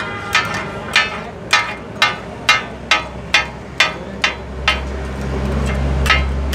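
Two steel chopping blades striking a large flat iron griddle as goat organ meat is minced for taka-tak: rhythmic ringing metallic clangs, about two a second, slowing to one or two strikes after about five seconds as a low steady hum comes in.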